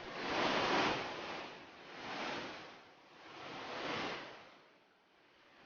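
Flash-flood water rushing between rocks: a noisy rush that swells and fades three times and drops low near the end.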